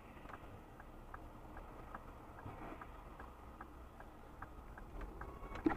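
Car turn-signal indicator ticking faintly and evenly, a little over two ticks a second, heard inside the car cabin over a low road rumble.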